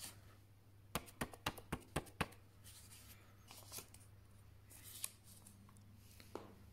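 A folded paper seed packet tapped lightly about six times in quick succession, about a second in, shaking the last tiny sundew seeds out over the pots, followed by soft paper rustles as it is handled and set down.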